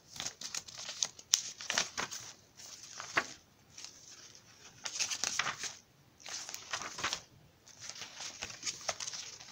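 Paper pages of a handmade junk journal being turned and handled by hand: rustling and crinkling in several short bursts with a few sharp clicks, separated by brief quiet gaps.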